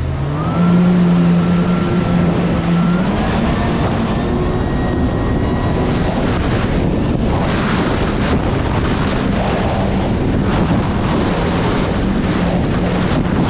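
Kawasaki Ultra 310 LX-S jet ski's supercharged four-cylinder engine rising in pitch twice as the throttle opens, then running steadily at speed. From about halfway on, wind on the microphone and rushing water grow over the engine.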